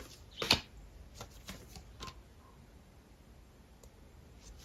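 Tarot cards being handled and laid out, with a few light card taps and flicks in the first two seconds.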